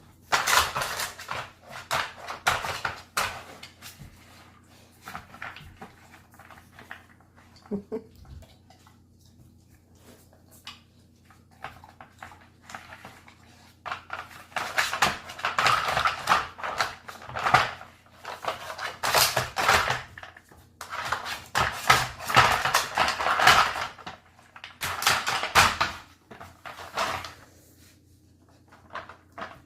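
Weimaraner puppy working a dog food puzzle toy: its sliding pieces and lids clatter and rattle in irregular bursts, busiest near the start and again through the second half.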